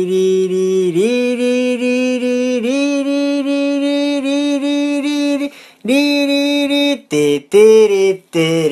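A chant-like droning voice holding long steady notes, stepping up in pitch about a second in and again a little later. Past the middle it breaks into a few short separate notes.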